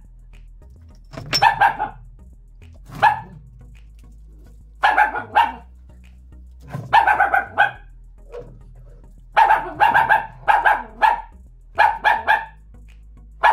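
Dog barking loudly and repeatedly, in short runs of two to four barks separated by pauses of a second or two.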